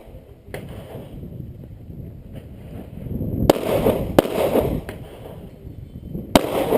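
Pistol gunfire: about six single shots at irregular spacing. Three of them are sharp and loud, the others fainter.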